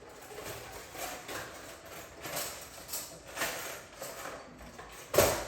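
A series of soft taps and scrapes from kitchen utensils, about every half second, with one sharper, louder knock near the end.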